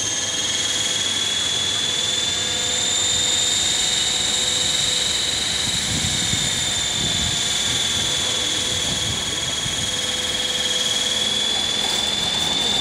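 Electric RC P51 Mustang's 970kv outrunner brushless motor and 14x8 wooden propeller whining steadily on the landing approach, the pitch rising slightly and then easing. Light clatters near the end as the plane touches down on the paving.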